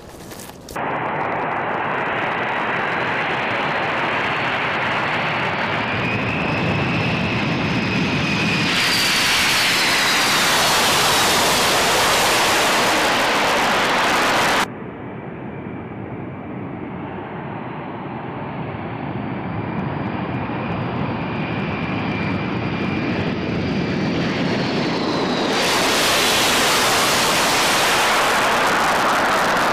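Turbofan engines of a large jet transport running close by, a loud jet noise with a high whine that falls in pitch as the aircraft goes past. The noise drops suddenly about halfway through, then builds again to a second loud pass.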